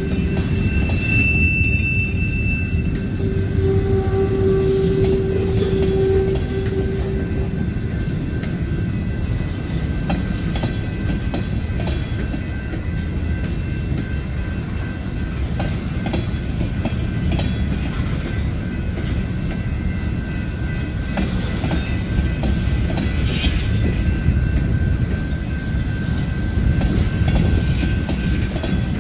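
A CSX freight train of tank cars rolling past: a steady low rumble of wheels on rail with scattered clicks over rail joints. A steady high tone runs over the first seven seconds or so, then stops.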